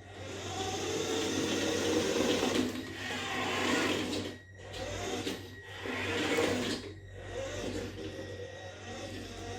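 Electric motor and gears of a radio-controlled toy Mini Cooper S running in several spurts with short pauses, the drivetrain rattling. This is the knocking noise that a change to the steering toe-in has not cured.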